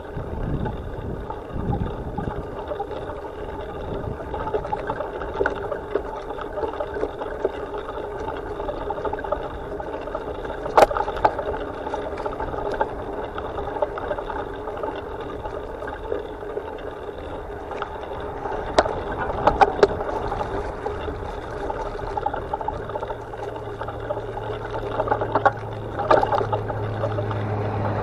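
Rattle and rumble of a mounted camera jolting along a bumpy dirt trail, with wind and ground noise. A few sharper knocks come from bumps, and a low steady hum comes in near the end.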